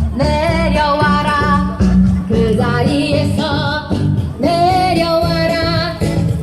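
A song with a singer's voice holding long notes over a steady instrumental accompaniment with a strong bass line.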